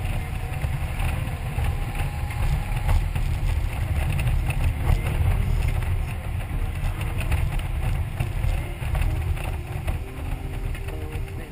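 Wind buffeting and rumbling on the action camera's microphone on a moving touring motorcycle, with the engine and road noise underneath.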